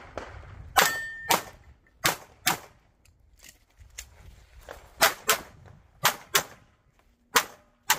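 Pistol shots fired in quick pairs: ten shots as five double-taps, with a pause of about two seconds after the second pair.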